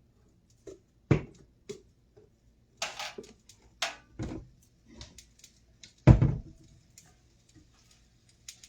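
Scattered knocks and clatter of kitchen items being handled and set down on a counter, the loudest knock about six seconds in.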